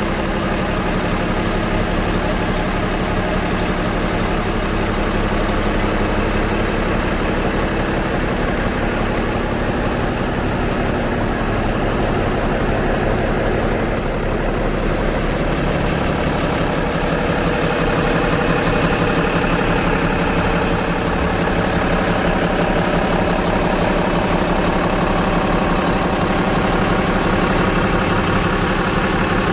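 Diesel engine of a Komatsu HB365NLC hybrid excavator running steadily at idle; its tone shifts slightly about halfway through and it gets a little louder.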